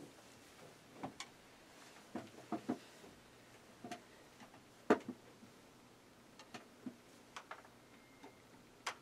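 Irregular light knocks and clicks of a person moving about, sitting down and picking up an instrument, with the loudest knock about five seconds in.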